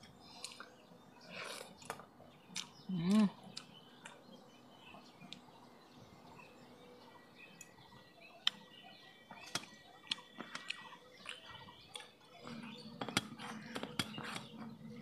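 Quiet eating by hand: chewing and light scattered clicks of fingers and rice against a steel plate, with a brief hum of a voice about three seconds in. Birds chirp faintly in the background.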